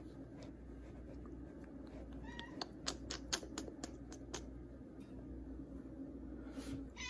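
A cat gives two short, faint meows a little over two seconds in, among a quick run of light clicks and taps, and starts another meow right at the end.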